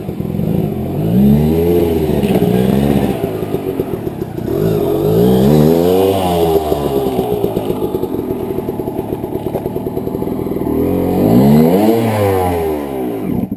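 KTM 450 four-stroke dirt bike engine revving up and down over and over as the bike is ridden up a trail, with some clatter; the engine sound cuts off abruptly near the end.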